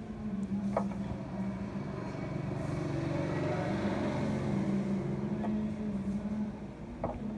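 A road vehicle's engine running with a steady low hum.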